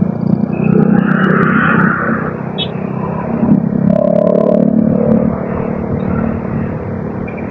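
Motor vehicle running along a road, most likely the vlogger's motorcycle: a steady engine-and-road noise with a few light clicks.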